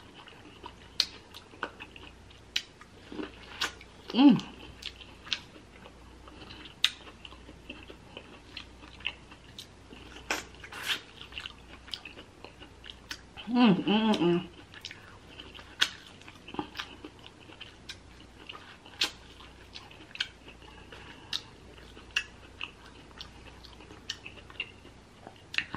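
Close-up mouth sounds of a person chewing a piece of seasoned corn on the cob: many short, wet clicks and smacks at an uneven pace. A brief vocal sound comes about 4 s in and again around 14 s.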